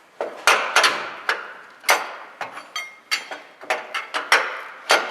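Repeated sharp knocks and clanks from work on the car, irregular at roughly two a second, each ringing briefly.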